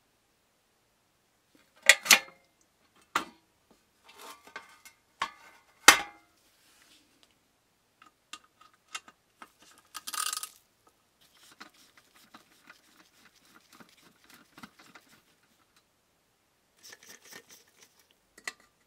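Metal clinks and clicks of a screwdriver against a small brass box and its screws: several sharp knocks in the first six seconds, a brief scrape about ten seconds in, then faint scratchy ticks as small brass screws are turned out.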